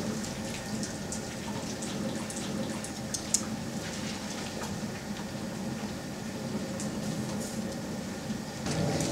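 Water boiling hard in a steaming stockpot on a propane burner: a steady hiss with bubbling and sloshing as strips of plant fiber are stirred in it, and scattered faint ticks.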